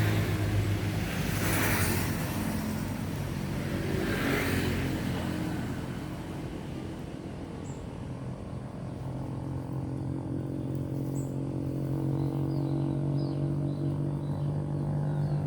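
A motor engine running steadily, a low hum whose pitch creeps up a little in the second half, with two short rushes of noise in the first few seconds and a few faint bird chirps near the end.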